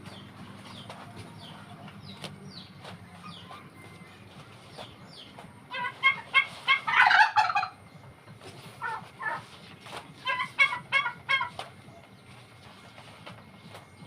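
Domestic poultry calling: bursts of rapid, pulsing calls, the loudest about six seconds in and another run around ten to eleven seconds in. Fainter short chirps come in the first few seconds.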